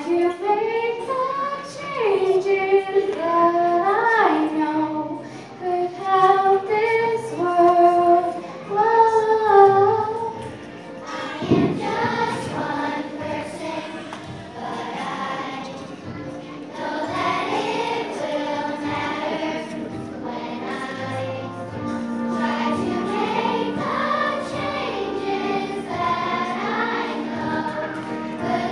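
Elementary school children's choir singing a song. The melody is clear and separate for the first ten seconds or so, then turns fuller and denser from about eleven seconds in.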